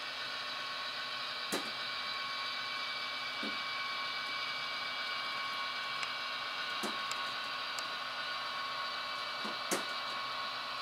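H0-scale Roco TEE Edelweiss model diesel railcar running, with its ESU sound decoder fitted: a steady hum and hiss with a faint high whine, and a few light clicks, the sharpest near the end.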